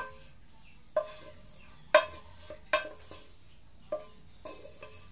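Wooden spatula knocking and scraping against a square nonstick metal pan while spreading oil around it, about one knock a second, each knock making the pan ring briefly.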